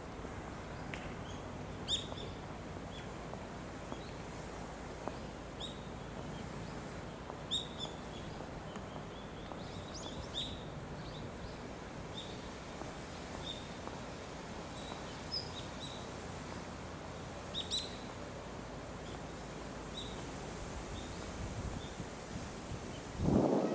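Small birds chirping on and off over a steady background hiss of outdoor ambience. A short, louder low rumble comes near the end.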